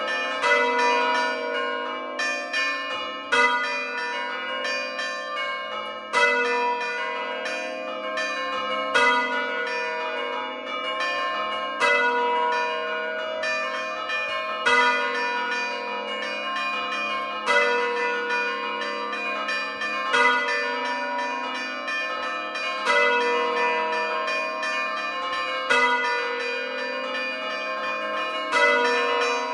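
A ring of four hand-rung church bells pealing in continuous overlapping strikes, with a louder stroke about every three seconds. The largest bell, tuned to A, was cast by De Poli in 1921; the three smaller ones were cast by Paolo Capanni in 1951.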